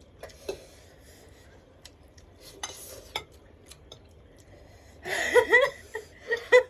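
Spoon or fork clicking and scraping against a bowl of instant noodles while they are eaten. About five seconds in, a person's voice breaks in with short, loud sounds that bend in pitch.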